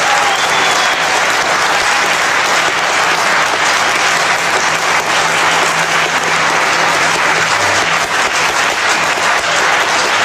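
A concert audience applauding, many hands clapping in a dense, steady stream.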